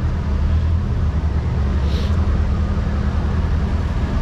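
Truck's diesel engine running steadily at low speed, a low even drone heard from inside the cab while the truck rolls slowly over a snowy yard.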